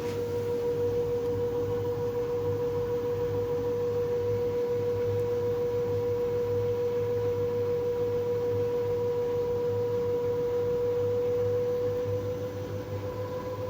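LG TurboWash washing machine on its TubClean cycle, giving a steady high-pitched squeal over a low motor hum. The squeal holds one pitch, then rises slightly and gets a little quieter near the end.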